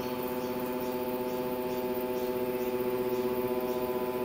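Stepper motors of a small desktop CNC router driving the head up toward its home switch during the homing cycle: a steady, even whine of several pitches.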